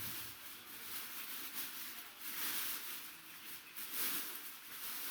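Packaging rustling and crinkling in uneven waves as a full-size football helmet is unwrapped from its box.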